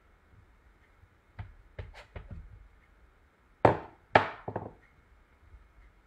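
Clear acrylic stamp block with a photopolymer stamp knocking and pressing against cardstock on a hard work surface while stamping: a few light knocks, then three louder ones about two-thirds of the way through.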